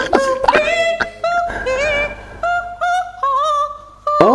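A woman singing a wordless melody, humming the tune instead of singing the words, in short held notes with slides between them and a quick upward swoop near the end.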